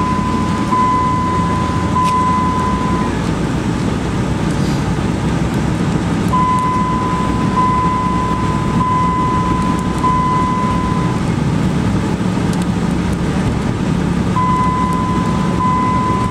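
Dodge Ram pickup driving on a snow-covered road: a steady engine and road rumble. A high electronic beep sounds over it in three runs of long, back-to-back beeps.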